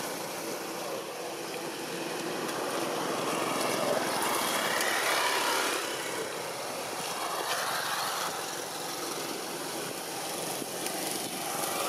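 Steady background noise of passing road vehicles, swelling and easing as they go by.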